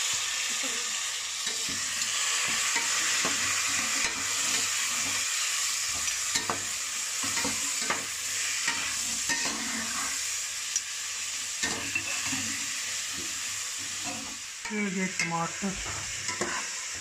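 Meat with onion and tomato sizzling in an aluminium pot as a metal slotted spoon stirs it, scraping and clinking against the pot in irregular strokes over a steady frying hiss.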